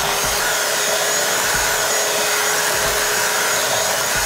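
Electric hand mixer running at a steady speed with a constant motor whine, its beaters whipping mashed potatoes.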